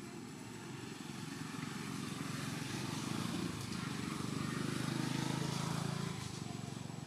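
A motor vehicle's engine droning as it passes by, growing louder to a peak about five seconds in and then fading.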